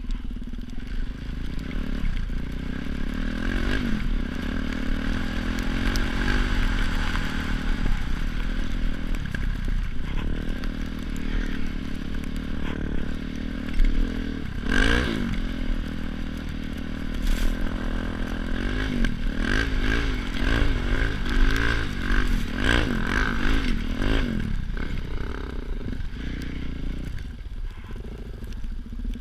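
Motorcycle engine running under way, its pitch rising and falling again and again with the throttle, with a low rumble underneath.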